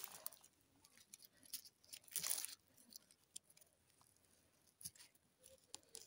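Faint rustling and snapping of dry leaves, twigs and moss on the forest floor, with scattered small crackles and a louder rustle about two seconds in.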